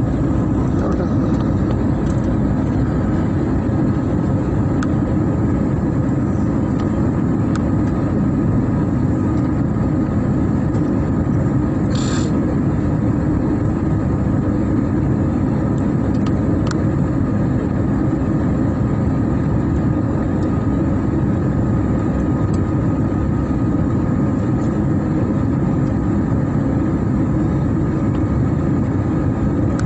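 Steady jet airliner cabin noise from a window seat over the wing: the turbofan engines and rushing air during the descent to land, a deep, even rumble with a faint steady whine above it. A short high hiss about twelve seconds in.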